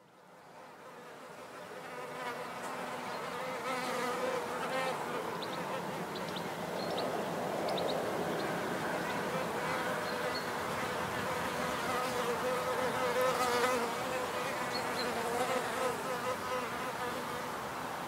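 Many wild bees buzzing around their hive, a dense wavering hum that fades in over the first two seconds and then holds steady.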